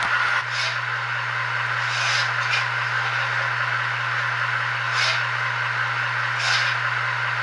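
Model train running on a layout: a steady low motor hum and running noise, with about five short hissing swishes at irregular intervals.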